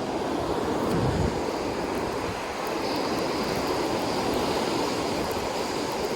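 Rough ocean surf breaking and washing up the beach, a steady rushing noise, with a gust of wind buffeting the microphone about a second in.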